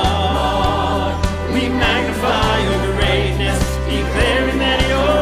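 Mixed choir of men and women singing a worship song in held, sustained phrases over instrumental backing with a steady beat and bass.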